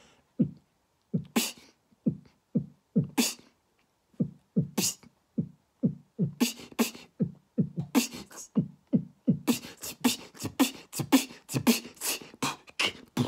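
Man beatboxing a simple beat with his mouth: low kick-drum thumps and sharp, hissing snare-like hits, sparse at first. The beat gets faster about halfway through and turns into a dense run of quick hits near the end.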